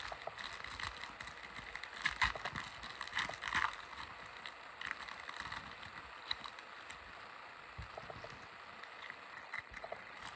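Foil trading-card pack wrappers crinkling and tearing as they are opened by hand, with irregular crackles and a few louder rustles about two and three and a half seconds in.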